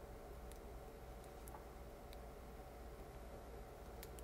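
Faint, scattered ticks and clicks of a Phillips screwdriver working against a plastic cable gland as it is pushed through the gland's centre to pierce the cable hole.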